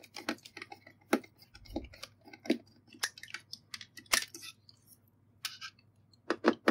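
Irregular small clicks and scrapes of a screwdriver working the screws that hold a PC power supply's circuit board in its metal case.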